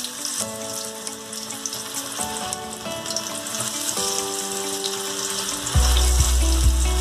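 Spice-coated raw banana slices deep-frying in hot oil, a steady crackling sizzle. Background music with held notes plays along, and a loud, deep rumble comes in near the end.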